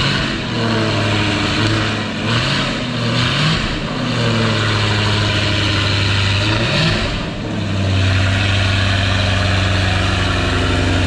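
Jaguar F-Type V8 coupé running through its quad exhaust, blipped several times in the first seven seconds so the revs rise and fall, then settling back to a steady idle.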